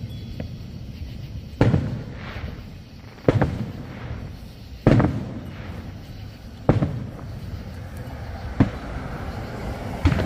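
Aerial firework shells bursting: six sharp booms, one every one and a half to two seconds, each trailing off briefly.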